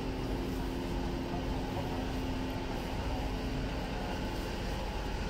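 Street ambience with a steady low hum from a running motor, fading a little near the end.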